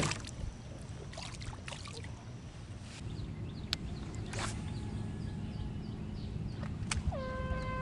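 A fishing cast from a kayak over a steady low rumble, with a few short clicks and a brief swish about halfway through as the rod swings forward. Near the end a steady horn-like tone starts with a short downward slide and holds.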